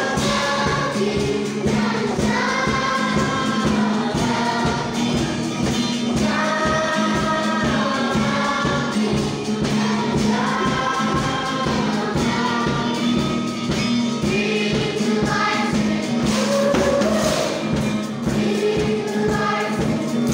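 A large group singing a gospel song together, accompanied by acoustic guitar strumming.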